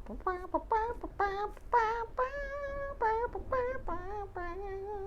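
A high voice singing a wordless tune: a quick run of short notes with vibrato, then one long held note.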